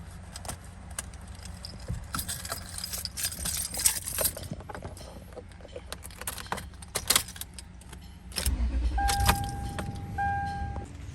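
A bunch of keys jangling and clinking for several seconds while being handled and searched. Near the end comes a low rumble and then a steady electronic beep tone.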